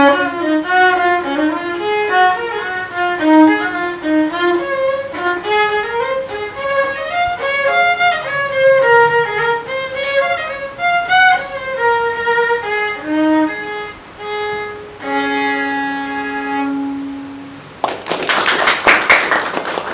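Solo violin bowed through quick melodic runs, slowing to a few held notes and ending on a long low held note. About two seconds before the end, a loud burst of rapid clattering noise.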